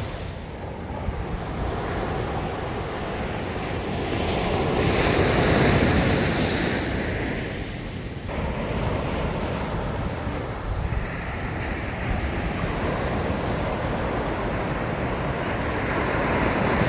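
Ocean surf breaking on a sandy beach, with wind buffeting the microphone. The surf swells louder about five seconds in and falls away again.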